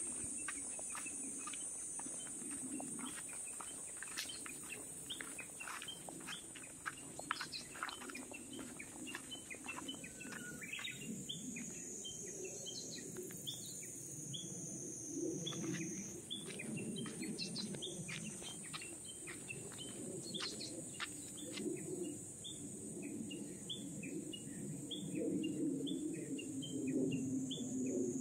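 Japanese bush warblers and other small songbirds singing and calling: many short chirps throughout, with a run of quick repeated chirps in the second half, over a steady high-pitched insect buzz.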